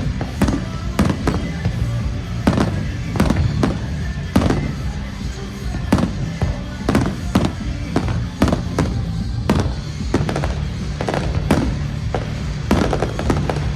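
Aerial fireworks bursting in quick succession, sharp bangs more than once a second, over music played for the show.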